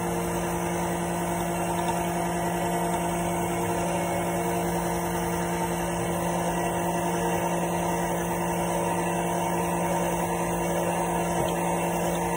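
Electric mixer running steadily, its beaters creaming butter in a bowl.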